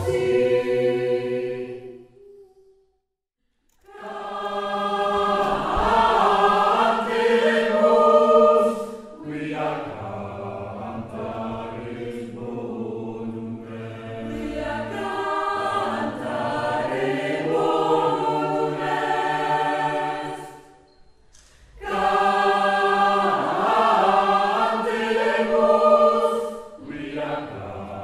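Choir singing a cappella, recorded live in concert, several voices holding chords together. The singing stops for about a second and a half about two seconds in, then resumes. A shorter break comes about three-quarters of the way through.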